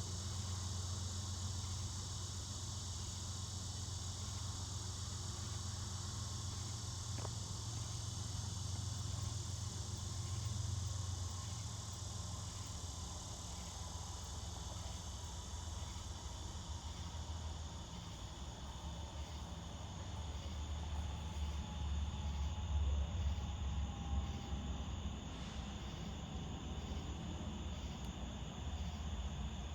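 Steady chorus of crickets or other night insects, with a low diesel rumble from the approaching CSX freight's locomotives underneath that grows stronger in the second half.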